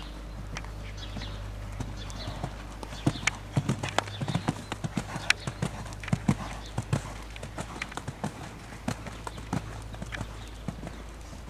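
Hoofbeats of a ridden horse moving over sand arena footing, a run of sharp clip-clopping strikes that grows loudest about three seconds in and thins out toward the end, over a steady low rumble.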